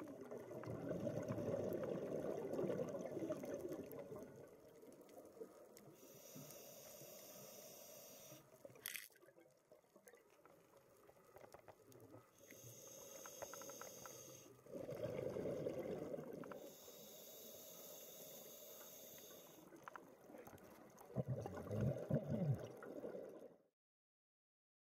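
Scuba diver breathing through a regulator underwater: low bubbling rushes of exhaled air lasting a few seconds, alternating with the higher hiss of each inhalation through the regulator. The sound cuts off suddenly near the end.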